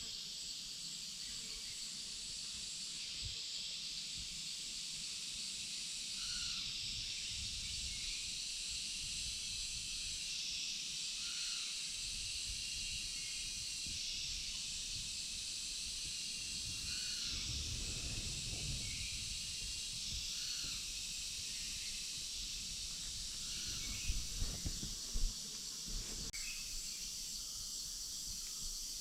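Forest insect chorus, a steady high-pitched buzzing, with faint short calls repeating every few seconds and a few soft knocks near the end.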